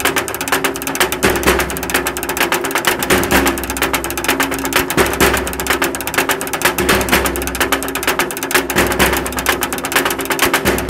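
Rapid, dense tapping and rattling of percussion sticks, mallets and a broom struck against a metal road sign, many strikes a second, with a steady low ringing underneath.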